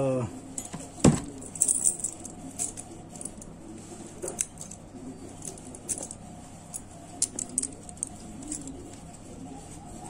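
Alarm padlock and its keys being handled: the padlock's siren cuts off right at the start, then a sharp metallic click about a second in, followed by scattered light clicks and key jingling.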